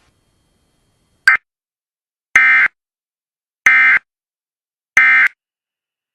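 Emergency Alert System SAME digital data tones: a brief blip, then three identical short, screechy bursts about 1.3 s apart. This is the end-of-message code that marks the close of a broadcast warning.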